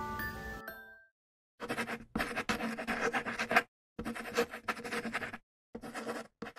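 Chime-like mallet notes ring on and fade out within the first second. Then come four stretches of dry scratching or rubbing, each half a second to a second and a half long, with short gaps between them.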